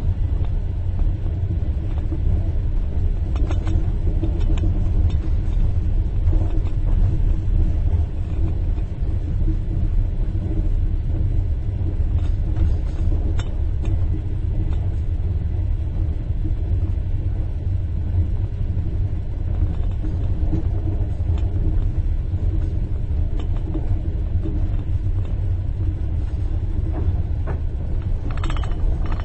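Steady low rumble of a train compartment running on the rails, with a few faint clicks along the way. Just before the end, a spoon starts tinkling against a cup in a quick run of ringing clinks.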